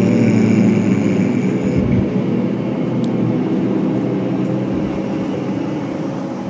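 A large group of people humming together in one long, low, steady drone of many voices, fading slowly: the humming exhalation of pranayama breathing such as bhramari (bee breath).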